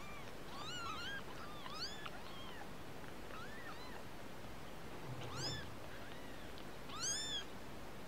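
Newborn kittens mewing: a string of short, high-pitched mews, each rising then falling in pitch, most of them in quick succession in the first two and a half seconds, then a few single ones, the loudest near the end.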